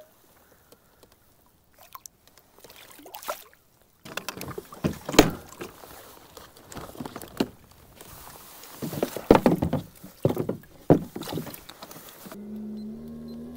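Irregular knocks, clunks and water splashing from gear being handled aboard a plastic fishing kayak, loudest in the second half. Near the end a steady hum of several tones begins suddenly.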